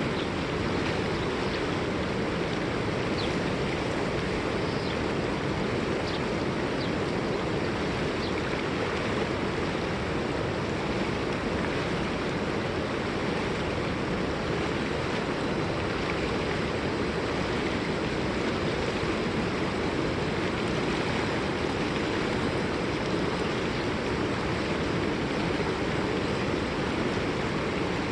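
River water rushing and flowing steadily.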